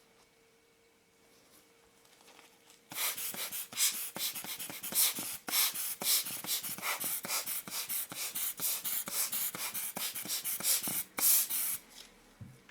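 Rapid hissing puffs of air from a hand-squeezed rubber lens blower, several a second, starting about three seconds in and stopping shortly before the end. The blower is clearing dust from the lens elements.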